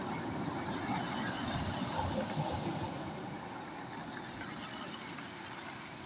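Sea waves breaking and washing up over a pebble beach: a steady surf noise that eases off a little in the second half.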